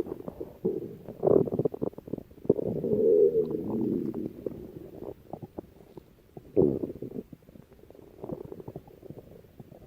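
Stomach growling and gurgling in irregular bouts, with many small pops and clicks. The strongest rumbles come about a second in, from about two and a half to four seconds, and near seven seconds, and they grow weaker toward the end.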